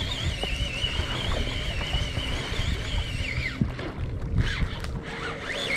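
Fishing reel's drag squealing in a wavering high tone as a hooked striped bass pulls line, stopping about three seconds in. Wind buffets the microphone throughout.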